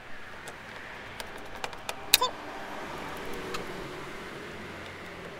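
Scattered light clicks and taps of a screwdriver against the plastic door panel and wiring connectors, with one sharper click about two seconds in, over a steady faint background rumble.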